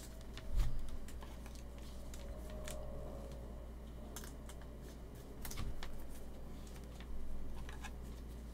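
Scattered light clicks and soft plastic rustling as trading cards and a clear plastic card sleeve are handled in gloved hands, over a faint steady low hum.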